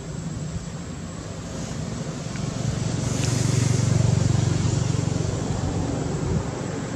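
A motor vehicle passing by: its low engine hum swells to a peak about four seconds in and then fades, over steady outdoor background noise.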